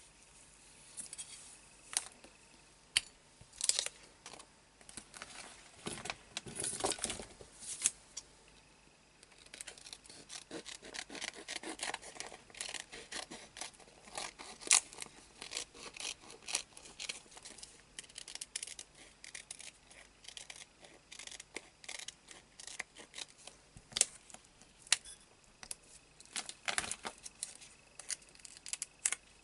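Scissors snipping through a thin clear plastic pocket in many short, irregular cuts, mixed with the crinkle and rustle of the plastic sheet being turned and handled.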